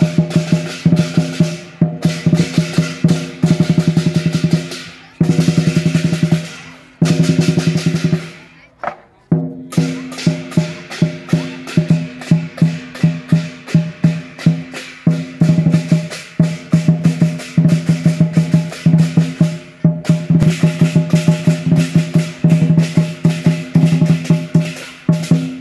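Lion dance drum played in fast rolls and driving beats, broken by a few short pauses.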